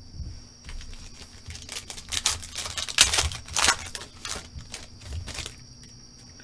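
Foil trading-card pack wrapper being torn open and crinkled by hand as the cards are pulled out, a run of irregular crackles that is densest in the middle and dies away about a second before the end.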